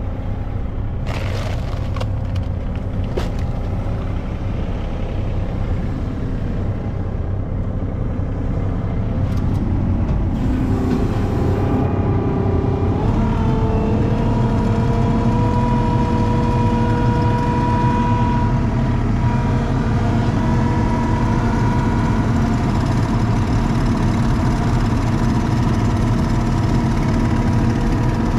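ASV compact track loader's diesel engine running, heard from inside its cab, with a few sharp knocks about one and three seconds in. Between about ten and thirteen seconds in the engine speed rises as the throttle is turned up, and it then holds steady at the higher speed.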